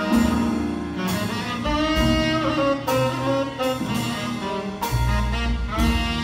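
Jazz big band playing: saxophone and brass sections over upright bass, with accented full-band hits about once a second.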